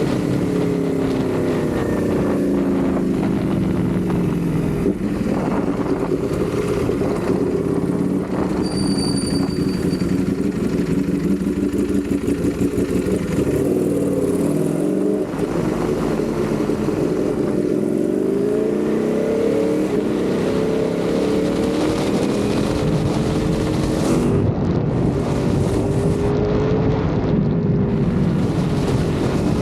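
Ducati Panigale V4's V4 engine under way, its note climbing and dropping again and again as the bike accelerates through the gears and rolls off.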